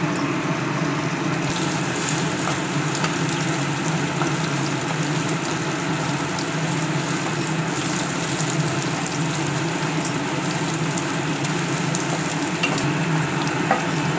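Beaten eggs sizzling as they fry in hot oil in a nonstick wok, stirred and scraped with a wooden spatula, with a steady low hum underneath.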